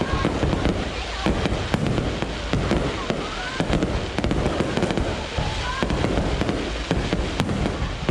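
Fireworks display: a dense, continuous run of bangs and crackles, with people's voices underneath.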